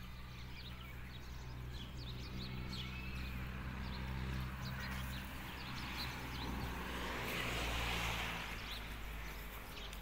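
A motor engine hums steadily at a low pitch. A rushing noise swells and fades about seven to nine seconds in, while small birds chirp.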